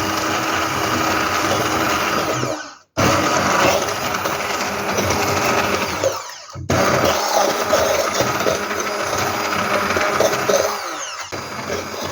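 Stick blender puréeing butternut cubes and stock, run in stop-start bursts. It cuts out completely about three seconds in, dips again about six and a half seconds in, and briefly near the end: the user is hesitating with an unfamiliar tool.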